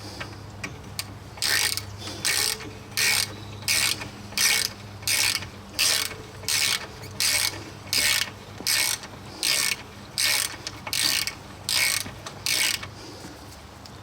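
Hand ratchet wrench being swung back and forth, a short burst of clicks on each stroke, about three strokes every two seconds; it stops about a second before the end.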